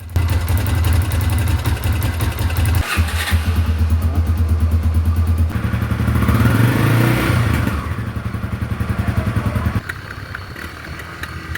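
Honda XR250 Tornado's single-cylinder engine running hard under way. It briefly drops out about 3 seconds in, like a gear change, rises in pitch with acceleration past the middle, and eases off near the end. A sewing-machine-like tapping runs through it, which the owner puts down to excessive valve clearance.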